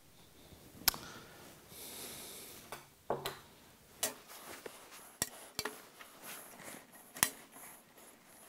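Handling sounds at a workbench: about half a dozen sharp clicks and taps, with a brief rub, as a metal pinstriping tool and a straight edge are lifted off and set down on a painted steel door panel.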